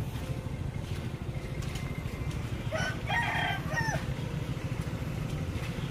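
A rooster crows once, a single call of about a second roughly midway through, over a steady low rumble of idling truck and motorbike engines.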